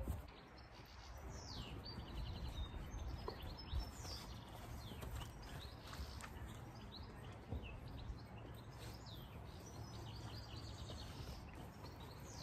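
Small garden birds chirping and trilling over a low steady background rumble, with a few soft thuds of feet landing on grass.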